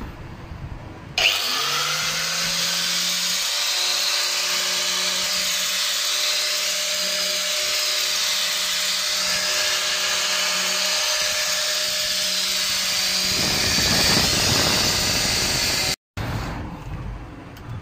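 Electric angle grinder fitted with a toothed circular saw blade switched on about a second in, spinning up quickly and then running at a steady high whine with no load. Near the end the whine gives way to a rushing noise, then cuts off abruptly.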